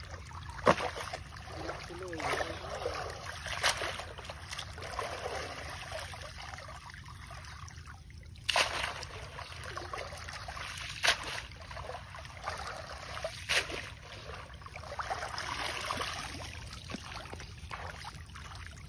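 Water sloshing and trickling as a wet cast net is hauled up out of shallow pond water and bundled by hand, with wading legs stirring the water. A few sharp splashes stand out, the loudest about a second in.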